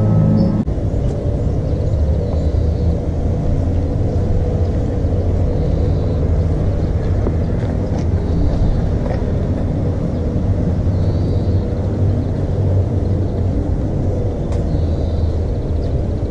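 Steady low rumble of a moving vehicle heard from inside, with music cutting out just under a second in.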